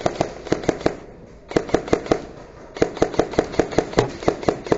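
Airsoft guns firing rapid shots, sharp cracks several a second in three runs, with short breaks about one second and two and a half seconds in.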